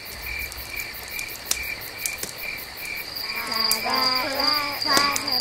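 Insects chirping in steady, evenly spaced high pulses, with occasional sharp clicks. About three seconds in, a pitched melodic line with long, gliding notes joins in over the chirping.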